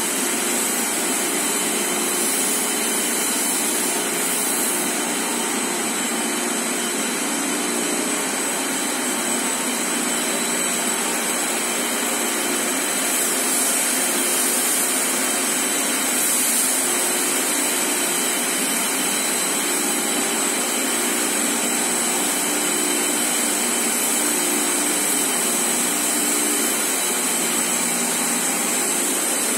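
FC IV 3600 high-speed tissue paper slitting machine running: a steady, loud whir of its electric drive motors and spinning rolls, with a constant high whine over it.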